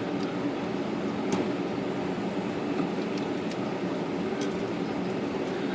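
Steady background hum, with a few faint light clicks spread through it as a Royal 10 typewriter's type bar and its bent link are moved by hand.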